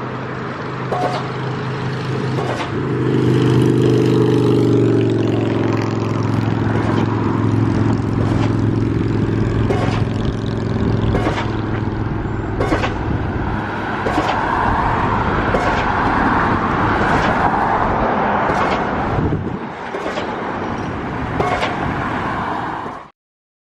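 Car running, a steady engine hum with road noise and occasional sharp clicks, cutting off abruptly near the end.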